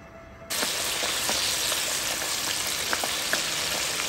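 Flour-coated chicken pieces deep-frying in a wok of hot oil: a steady, dense sizzle with scattered pops and crackles. It starts suddenly about half a second in.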